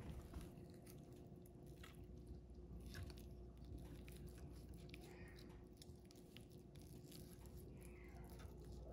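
Faint sounds of a small knife slicing the fat and gristle off raw New York strip steak on a wooden cutting board: soft wet cutting strokes and scattered light clicks of the blade, over a low steady hum.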